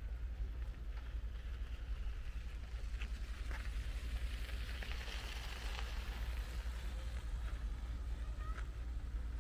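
Wind buffeting the microphone, a steady low rumble, with an airy hiss that swells in the middle and a few faint high chirps near the end.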